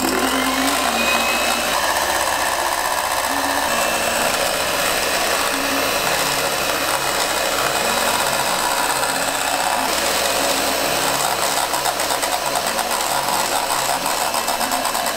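Electric whisk running steadily as it whips egg yolk and egg white together into the egg-coffee foam.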